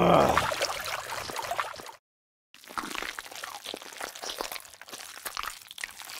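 Wet splashing and squelching of muddy water, busy with small clicks and drips, broken by a half-second of dead silence about two seconds in. A low grunting sound effect dies away at the very start.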